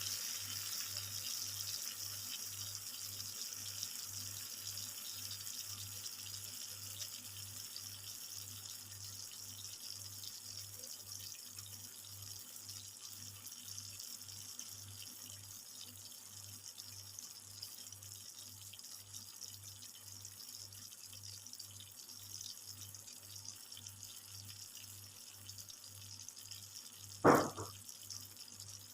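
Pot of chicken adobo simmering: a steady, watery hiss that slowly dies down. One short, loud knock near the end.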